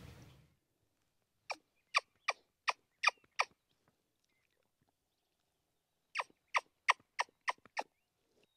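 Two series of about six short, sharp turkey yelps, blown on a mouth-held turkey call to draw in a wild turkey. The second series, near the end, comes a little faster than the first.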